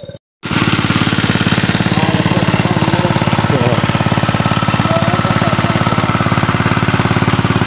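Small engine running steadily with a fast, even beat, cutting in after a moment of silence at the start. It is the motor of the pump sucking the water out of the pond.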